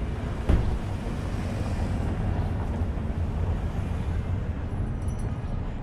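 Outdoor city street ambience: a steady low rumble of traffic and wind, with one sharp knock about half a second in and a faint high squeak near the end.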